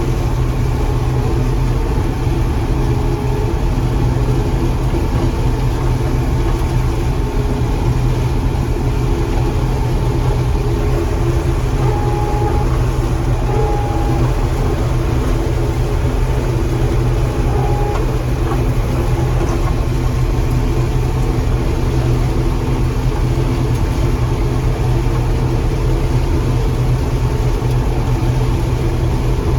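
John Deere 4400 combine running steadily while harvesting corn, heard from inside the cab: a constant engine drone with the steady hum of the threshing machinery.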